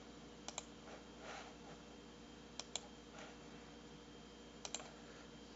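Three pairs of faint computer mouse clicks, each a quick double click, over a faint steady hum of room tone.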